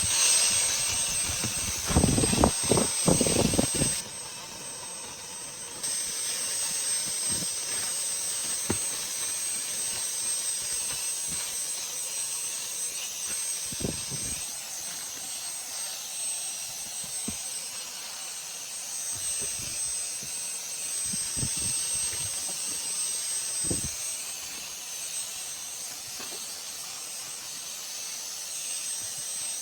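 Vacuum cleaner running with a steady airy hiss and a high motor whine. A cluster of loud knocks comes about two seconds in, and scattered single bumps follow, with the running sound dipping briefly around four seconds.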